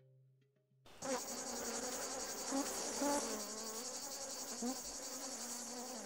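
Many bee-like flying insects buzzing, the buzz wavering up and down in pitch as they fly close, over a steady high chirring. It starts suddenly about a second in.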